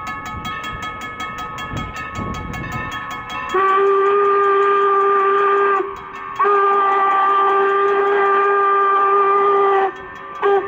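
Steam whistle of 4-8-0 steam locomotive No. 475 blowing two long blasts and then a short one, the long-long-short opening of the standard grade-crossing signal. Before the whistle, the approaching train gives a low rumble for the first few seconds.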